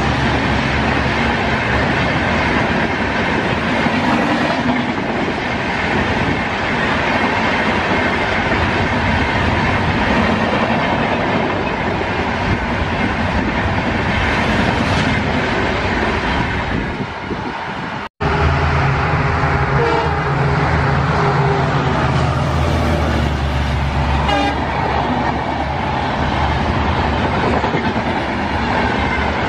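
Indian Railways express passenger coaches passing at high speed, wheels rumbling and clattering over the rails. About two-thirds of the way in, the sound cuts to a second train, an AC double-decker express, passing close. This part carries a steady low engine drone and horn tones.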